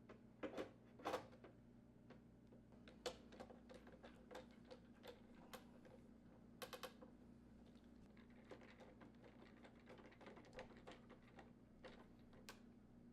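Faint, irregular clicks and taps of a 1/8-inch Allen wrench working the door handle set screws as they are tightened, the louder knocks clustered near the start and around the middle, over a steady low hum.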